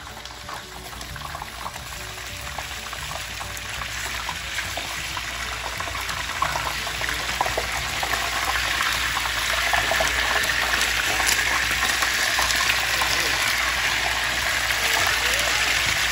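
A whole mutton snapper deep-frying in a pot of hot oil: steady sizzling and crackling that grows gradually louder.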